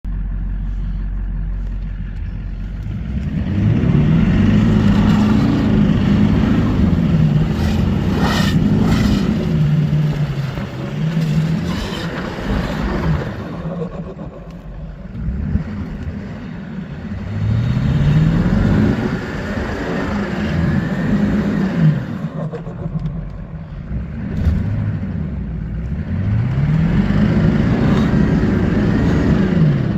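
LB7 Duramax 6.6-litre V8 turbo-diesel revved about four times, each rev climbing and falling back to idle, with the turbo fluttering as the throttle is let off.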